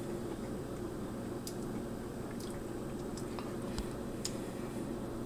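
A person eating a spoonful of pecan praline ice cream: faint mouth clicks and smacks now and then over a steady low hum.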